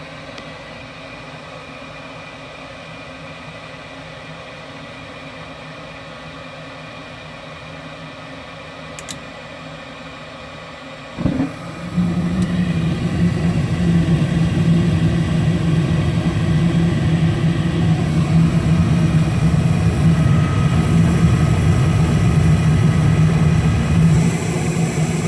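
Lennox EL296 gas furnace, fitted with new noise-reduction burners, going through startup: a steady fan hum, a brief click about nine seconds in, then the burners lighting suddenly about eleven seconds in and burning with a much louder steady low rumble. The low-fire burn sounds normal, with no foghorn drone.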